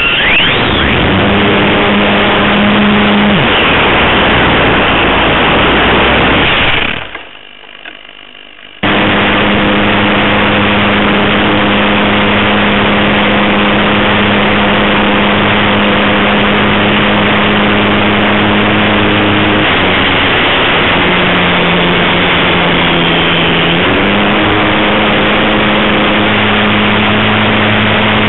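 Radio-controlled model airplane's motor and propeller heard from the onboard camera, running with a steady pitched drone under loud wind rush. The sound drops away sharply for about two seconds around seven seconds in, then runs steady again, its pitch dipping a little past the middle and coming back up a few seconds later.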